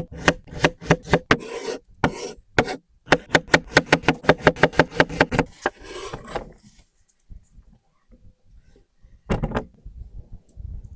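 Knife chopping food on a board in fast, even strokes, about five a second, in two runs, then stopping; a single dull thud follows later.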